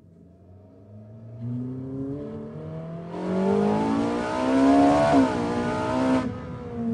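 Ferrari 458 Italia's 4.5-litre V8 accelerating, its note rising in pitch and growing steadily louder as it approaches. About five seconds in the pitch dips briefly, then climbs again.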